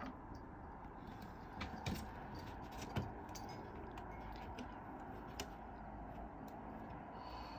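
Faint steady room noise with a few light clicks and knocks, the clearest about two and three seconds in and another at about five and a half seconds.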